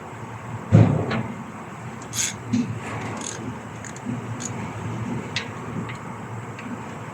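A heavy metal clunk about a second in, then scattered light clicks and taps: hand tools and parts being handled while working on the van's starter.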